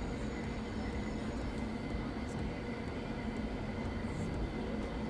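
Steady low background rumble, like room tone, with no distinct event.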